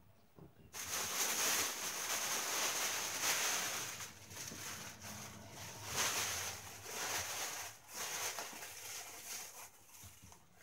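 Clear plastic packaging crinkling and rustling as it is pulled off and crumpled in the hands. It starts about a second in, is loudest over the next few seconds, and eases off near the end.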